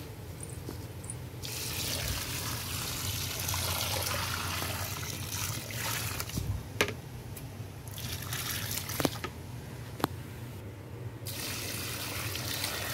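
Water poured from a plastic bucket onto dry soil in a plastic tub, splashing into the soil as it turns to mud. The pour starts about a second and a half in, breaks off briefly twice, and has a few sharp clicks along the way.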